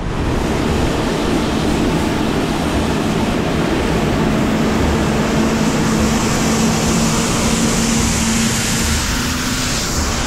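Steady rush of wind and road noise on a moving cyclist's camera microphone amid city traffic, with a low steady hum underneath that fades out near the end.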